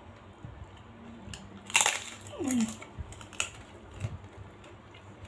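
A bite into crisp crackers (krupuk) gives one loud crunch about two seconds in, followed by a short falling tone and a few smaller crunching clicks of chewing.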